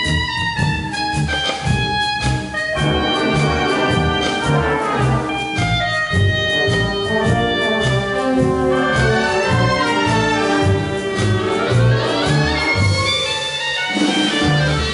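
Concert wind band playing a foxtrot: a solo clarinet carries the melody over brass, saxophones and a steady bass beat.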